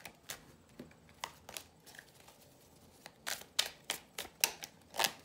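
Tarot cards being shuffled by hand: sharp slaps and clicks of the cards against each other, sparse at first, then coming quicker and louder in the last two seconds.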